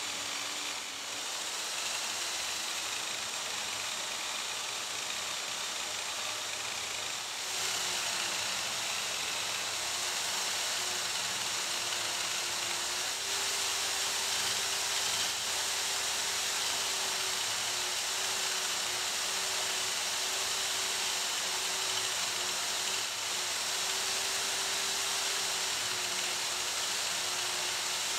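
Bench buffer motor running steadily, its cloth buffing wheel spinning while small metal parts are pressed against it for polishing: a steady whir and hiss with a held hum, getting a little louder about seven seconds in.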